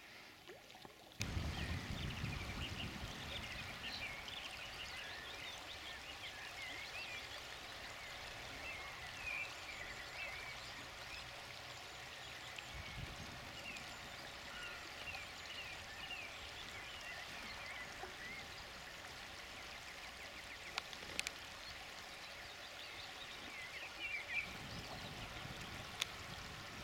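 Shallow river running over a gravel bed, a steady rush of water, with small birds chirping over it and a low rumble now and then.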